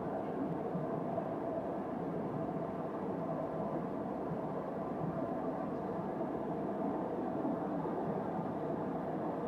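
Steady drone of an airliner's engines and rushing air heard inside the passenger cabin, with a faint steady hum running through it.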